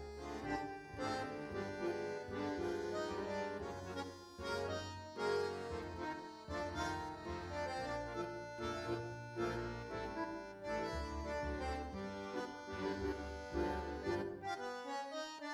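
Instrumental outro music: sustained melodic notes over a moving bass line, with no voices.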